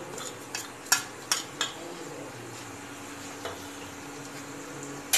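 Cumin seeds sizzling steadily in hot oil in a nonstick frying pan, with a few sharp clinks of a metal spoon against a steel plate in the first two seconds and once more about three and a half seconds in.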